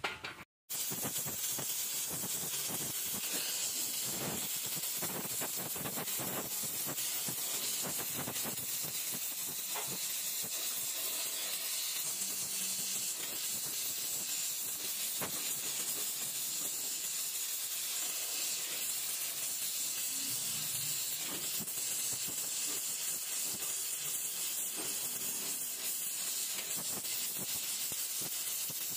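Gas welding torch flame hissing steadily while welding aluminium, with faint scattered crackles. The hiss starts abruptly about half a second in.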